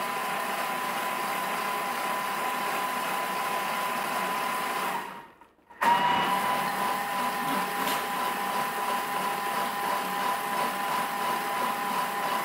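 Thermomix TM6 running its pre-wash cleaning cycle: a steady motor whine over a hum. About five seconds in it cuts out for about half a second, then comes back.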